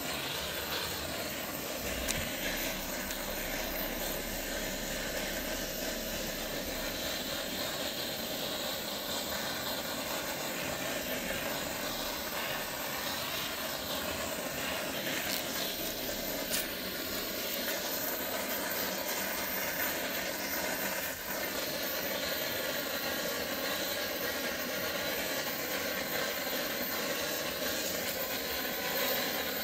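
Handheld gas cartridge blowtorch burning with a steady hissing rush as its flame is played over a plastic car bumper.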